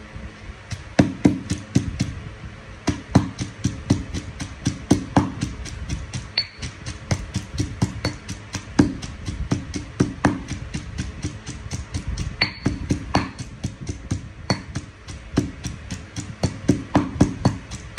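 Granite pestle pounding in a granite mortar, a steady run of dull knocks at about three strokes a second, crushing the chilies and garlic for a nam prik kapi (shrimp-paste chili dip).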